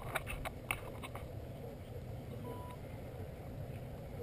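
Handling noise close to the microphone: a quick run of clicks and taps in the first second, then a single short electronic beep a little past the middle, over a low steady rumble of wind on the microphone.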